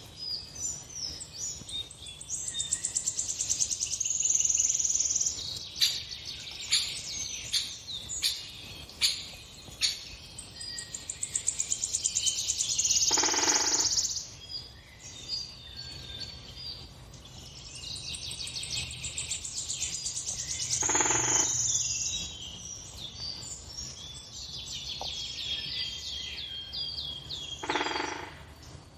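Birdsong from a bird video playing on a television: many high chirps and trills, with a run of sharp chirps near the start. Three times a longer, lower call stands out.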